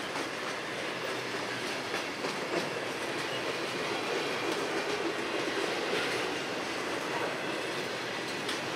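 Freight train boxcars rolling past: a steady noise of steel wheels on rail, with an occasional click as wheels cross the rail joints.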